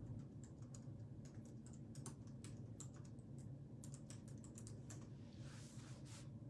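Faint, irregular clicking of typing on a computer keyboard, with a brief soft rustle near the end.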